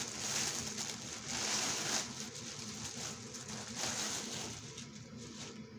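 Packaging rustling and crinkling as it is handled and pulled off a boxed item, in uneven swells.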